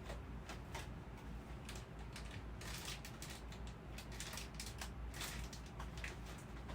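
Irregular light clicks, taps and rustles of small objects being handled and moved about while someone rummages through craft and gift supplies, with a few quicker flurries of clicking.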